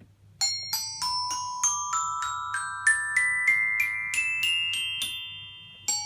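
Xylophone sound effect: an ascending run of struck notes, about three a second, each note ringing on as the next is struck, climbing in pitch for about five seconds. The run dies away and a second rising run begins near the end.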